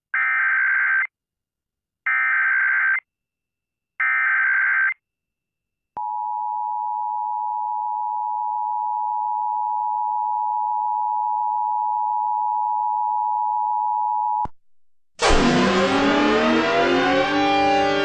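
Emergency Alert System broadcast: three one-second bursts of warbling SAME header data tones, then the steady two-tone EAS attention signal (853 and 960 Hz) held for about eight seconds before cutting off. About fifteen seconds in, a loud siren-style sound effect starts, its pitches sliding down and then holding.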